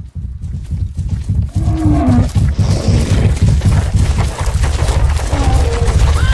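A cow mooing in a few short calls that fall in pitch, over a loud, dense low rumble.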